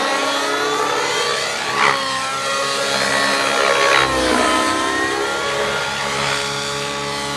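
Align T-Rex 700 nitro RC helicopter in flight: its glow engine and rotor head run at high speed. The engine pitch dips and rises again as it swoops past, about two and four seconds in.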